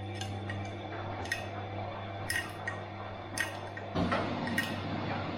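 Washing machine running mid-cycle: a steady motor hum under water sloshing and dripping in the drum, with sharp clinks every second or so. The sloshing gets louder about four seconds in.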